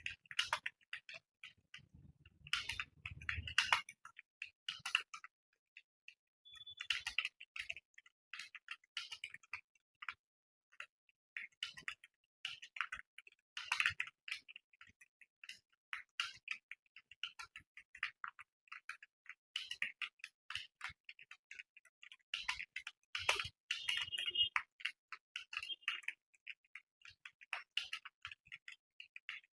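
Computer keyboard being typed on at speed: a rapid, irregular stream of key clicks with a brief pause about five seconds in.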